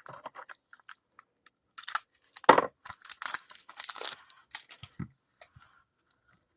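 Trading cards and their plastic wrappers being handled: crinkling and rustling with a few sharp taps, loudest a couple of seconds in, then quiet near the end.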